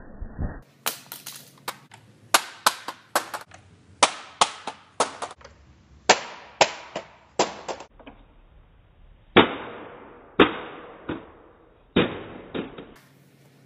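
Gunfire: about two dozen pistol shots in quick bursts of two to five, each shot followed by a short echoing tail, with brief pauses between bursts.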